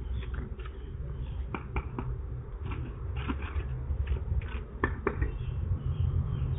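Steady low rumble with a few short clicks and knocks scattered through it.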